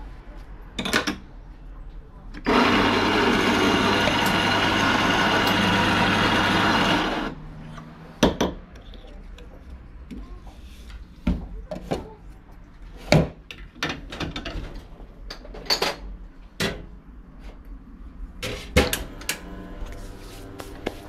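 Electric espresso grinder running for about five seconds, grinding a dose of coffee into a portafilter. It is followed by scattered sharp knocks and clicks as the portafilter and tamper are handled.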